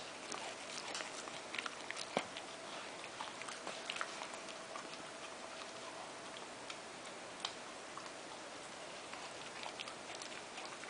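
A dog chewing on a tissue: soft, irregular wet clicks and ticks of the mouth working, with a sharper click about two seconds in and another past the middle. A faint steady hum sits underneath for the first half.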